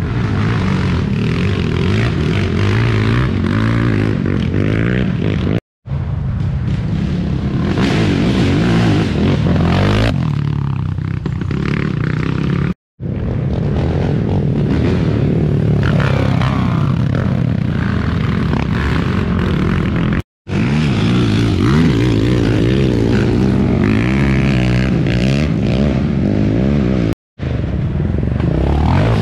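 Racing ATV (quad) engines running hard and revving, the pitch rising and falling with the throttle. The sound drops briefly to silence four times.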